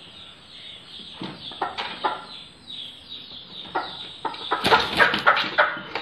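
Parrot-nose aseel chickens clucking in short, scattered calls, with a louder flurry of clucks and wing flapping near the end.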